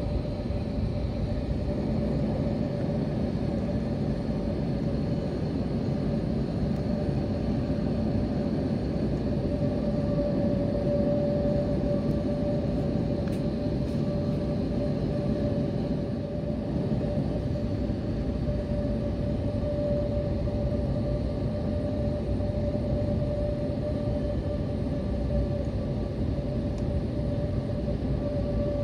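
Airbus A321 cabin noise during taxi: a steady low rumble from the engines at idle and the airflow, with a constant mid-pitched whine running through it.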